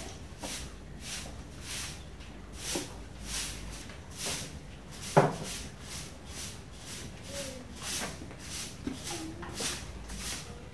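Chopsticks working squid pieces through a bowl of panko breadcrumbs: rhythmic soft scraping strokes, about two a second. There is one sharp click about five seconds in, the loudest sound.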